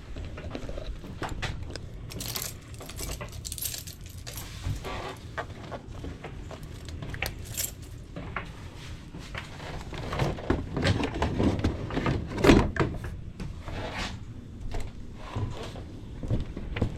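Handling noises: jingling, clinking and scattered knocks as gear is moved about, with the sharpest knock about twelve seconds in.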